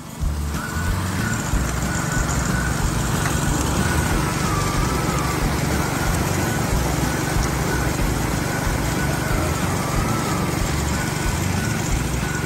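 Small gasoline engine running steadily, driving a highbanker's water pump, with water spraying from the PVC spray bar and rushing through the hopper's classifier grate.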